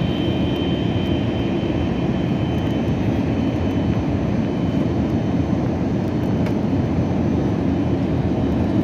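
Cabin noise of an Airbus A321neo jet airliner coming in to land: a steady, dense rumble of engines and rushing air, with a thin high whine that fades out about three seconds in.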